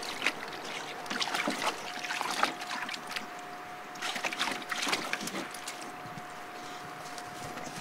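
A large dog, a pit bull, splashing and wading in water in a plastic kiddie pool: irregular sloshes and splashes. The splashing thins out in the last couple of seconds as he steps out onto the gravel.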